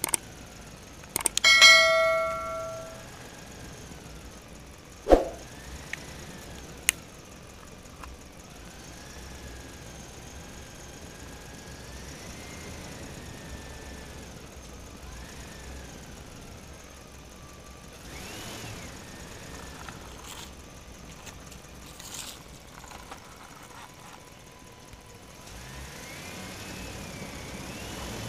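A couple of clicks and then a bright bell ding that rings out and fades, from a subscribe-button animation, about a second and a half in. After that a sharp knock, then faint outdoor background with a few light taps.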